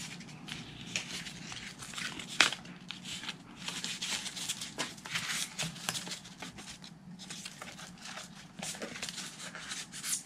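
Corrugated plastic (Coroplast) and EPP foam being handled: irregular rubbing, rustling and clicking as a foam wedge is worked into the folded winglet, with one sharp click about two and a half seconds in.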